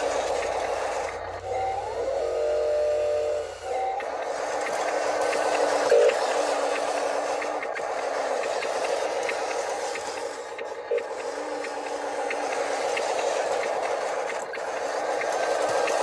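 Radio-controlled toy wheel loader's electric drive motors and gears whirring steadily as it drives over gravel, with a separate motor whine about two to four seconds in and a few small knocks.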